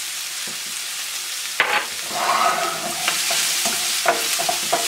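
Shallots, garlic and thyme sizzling in oil in a frying pan. From about a second and a half in, a wooden spoon stirs and scrapes them around the pan, with several knocks against it.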